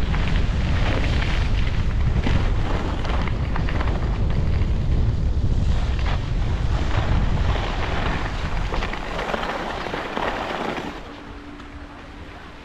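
Wind buffeting the microphone in a loud rumble, with skis scraping and hissing over snow during a fast descent. It eases off about eleven seconds in as the skier slows.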